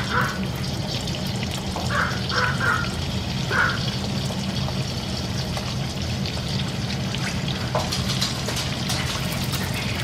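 Rice-paper egg rolls deep-frying in hot vegetable oil: a steady sizzle with fine crackling over a low hum, the first of two fryings.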